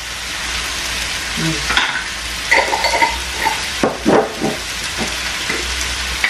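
Tomato and spice masala frying in oil in a pan, a steady sizzle, with a few light clicks and clinks of a small spoon against a glass spice jar around the middle.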